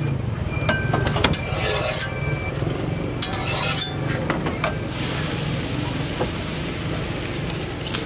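Scattered clicks and scrapes of utensils on a flat metal griddle, then, from about five seconds in, a steady sizzle as a stretched sheet of roti dough fries on the hot oiled griddle. A low hum runs underneath.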